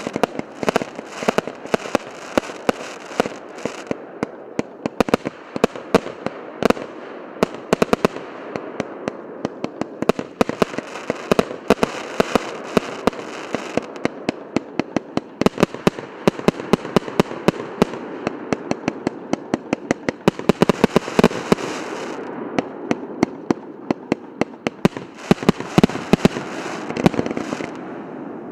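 Omsk Salute OT 012 'Yantar' firework going off: a long, dense run of sharp bangs and crackles over a steady hiss, thinning out for a few seconds near the end before another busy burst.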